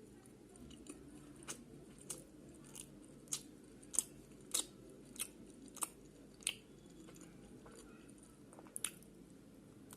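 Close-up chewing of chicken pizza: a run of crisp crunches as the crust is chewed, a little over one a second, thinning out after about six seconds to softer chewing with a last double crunch near the end.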